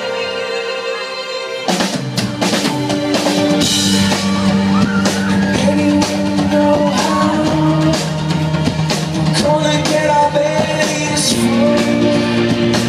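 Live rock band: sustained keyboard chords, then a little under two seconds in the drum kit comes in with the full band and a singing voice.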